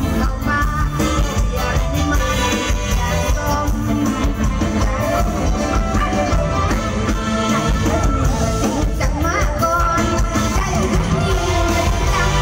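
Live Isan band music with a steady beat and a voice singing over it.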